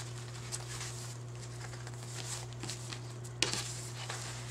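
Scrap swatches from fabric sample books, some with paper backing, being flipped through by hand: soft rustling and flapping, with one sharper flap about three and a half seconds in, over a steady low hum.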